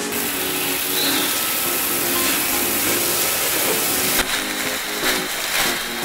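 LG CordZero A9 cordless stick vacuum running, a steady loud hiss of suction as its soft brush nozzle takes up sand; the sound changes abruptly about four seconds in. Faint background music underneath.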